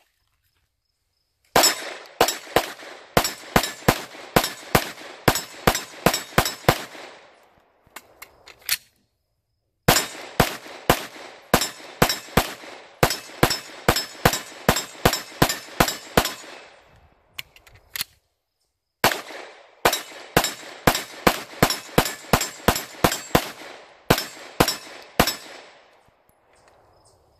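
Glock 19 Gen5 9 mm pistol fired rapidly in three strings, one per magazine, about three shots a second, with pauses of a few seconds between strings and a few single clicks in the pauses.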